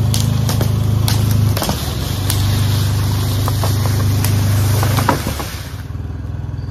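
Coleman UT400 UTV's engine running steadily under load, with a hiss and scattered sharp cracks over it. About five seconds in the hiss and cracks stop and the engine settles to a quieter idle.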